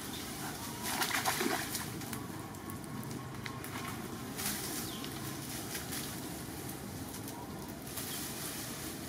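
Outdoor ambience of birds calling over a steady background hiss, with a brief louder patch of noise about a second in.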